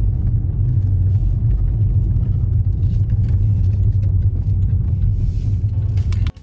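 Volkswagen car driving, heard from inside the cabin as a steady low rumble of engine and road noise that cuts off suddenly near the end.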